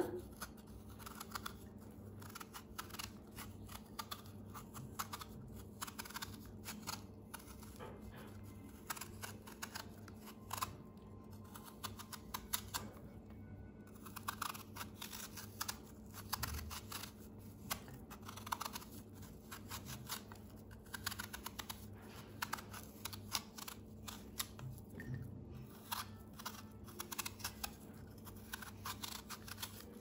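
Kitchen knife peeling a raw quince, the blade shaving off thin strips of skin in a run of soft, irregular crisp clicks and scrapes.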